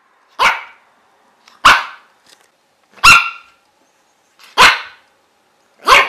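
Dog barking: five single barks spaced evenly, about one every second and a half.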